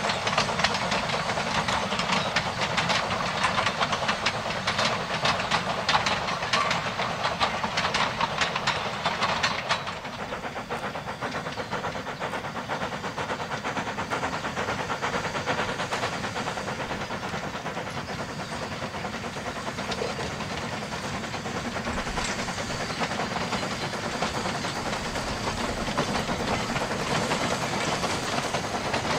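Narrow-gauge steam train running past. For about the first ten seconds there is the close rattle and rapid clicking of wagons passing over the rails; then the level drops suddenly and the train is heard more steadily from farther off, the steam locomotive working with a hiss.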